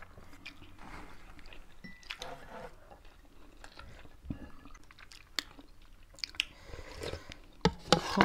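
Close-up chewing and biting of people eating rice and pork by hand, with scattered soft clicks and a few sharper clicks near the end.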